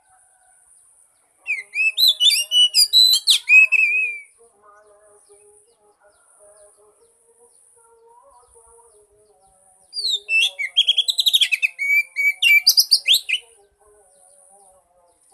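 Oriental magpie-robin singing two loud phrases of rapid, varied whistled notes, one about a second and a half in and another near the end. A faint steady high buzz runs underneath.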